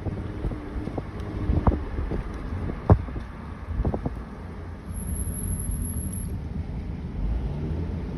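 Car rolling slowly with low road and wind rumble and a few light knocks, then a very high-pitched brake squeal about five seconds in that lasts a little over a second as the brakes are applied.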